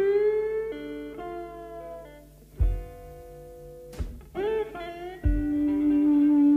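Background music: a blues-rock song's instrumental passage of guitar notes, some bent in pitch, with a few deep drum thumps.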